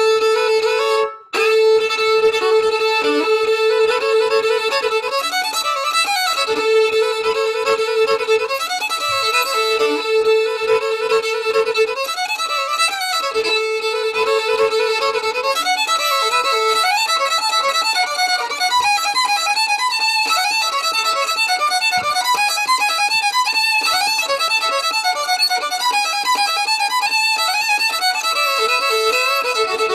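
Solo fiddle playing a fiddle tune, the melody moving over a held lower note that keeps returning through the first half, with a brief break about a second in.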